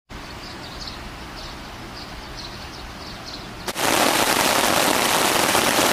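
Forest ambience with faint, repeated short high chirps, then a sudden switch a little under four seconds in to loud, dense, crackling heavy rain.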